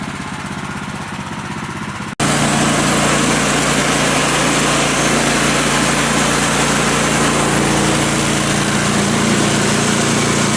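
Small gasoline engine of a portable band sawmill running steadily. After a sudden break about two seconds in, it is louder, with a steady hum and a hiss over the top, as the mill works through the last cut of the log.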